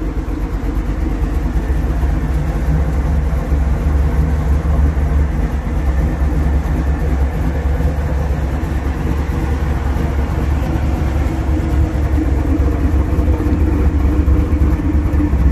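1951 Ford F1's turbocharged 383 small-block stroker V8 idling steadily, a low, even rumble through Sanderson headers and Flowmaster exhaust.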